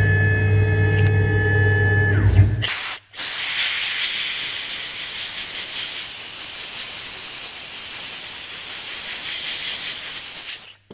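Hand-held compressed-air blow gun hissing in one long blast, clearing chips from freshly CNC-engraved chocolate. The blast starts about three seconds in after a brief stutter and cuts off abruptly just before the end. Before it, a steady hum with held tones.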